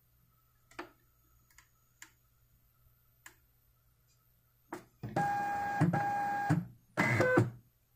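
Zebra GK420t desktop label printer feeding label stock after its feed button is pressed: a few light clicks, then the feed motor whines steadily for about a second and a half, stops, and runs again briefly. The printer is not aligning to the next label as one press should make it do.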